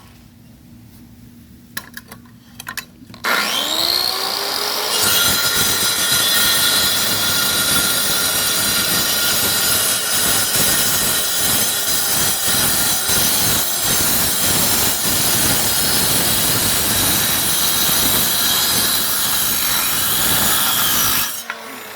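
Electric saw cutting concrete. After a few clicks the motor starts with a rising whine about three seconds in, then the blade grinds steadily through the concrete until the saw cuts off just before the end, its whine falling as it spins down.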